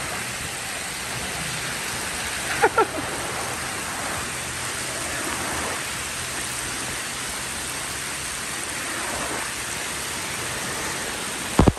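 Rainwater runoff rushing steadily down a flooded street gutter in heavy rain. A brief shout rings out about three seconds in, and a sharp knock comes just before the end.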